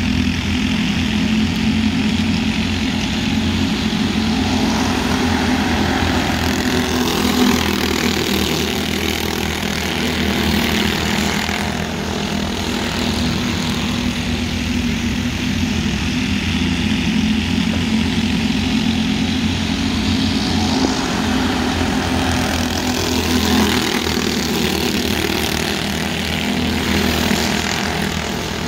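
A pack of small dirt-track race cars running laps together, their small engines making a continuous high buzz that swells and fades as the cars pass.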